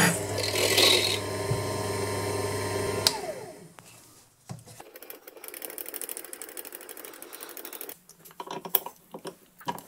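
Proxxon mini mill's spindle motor running with a diamond core drill in granite, then switched off about three seconds in, its whine falling as it winds down. Faint light clicking and a few small knocks follow.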